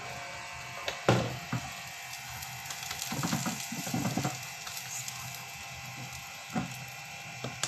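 Omelette frying in a nonstick pan with a steady sizzle, while a silicone spatula scrapes and knocks against the pan as the omelette is folded and pressed. A sharp knock comes about a second in, a run of scrapes around three to four seconds in, and two more knocks near the end.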